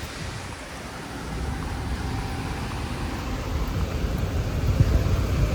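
City street traffic noise: a steady low rumble of passing cars that grows a little louder partway through.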